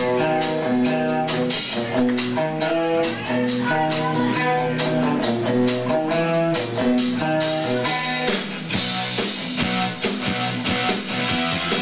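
Live rock band playing: an electric guitar line of sustained notes over bass and a drum kit, with the cymbals getting louder about eight or nine seconds in.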